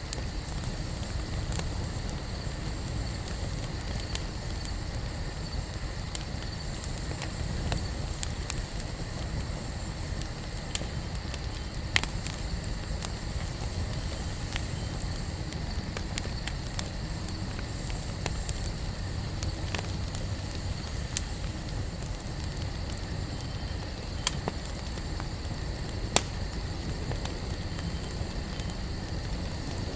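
Wood campfire burning: a steady low rumble of flames with scattered sharp crackles and pops from the burning wood, a handful of them clearly louder than the rest.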